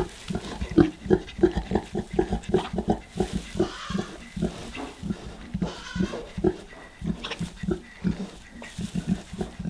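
A sow grunting in labour: a quick, steady run of short grunts, about three or four a second.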